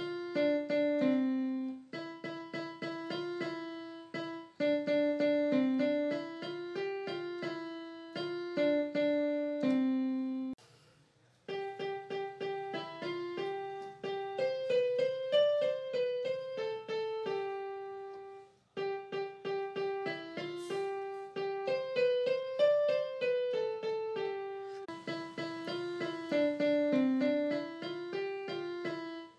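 Background piano music: a simple melody of steady, evenly paced notes, which stops briefly twice.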